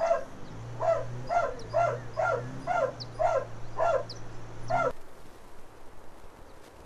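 A dog barking over and over, about two barks a second, over a steady low hum. Both stop abruptly about five seconds in, leaving a faint even hiss.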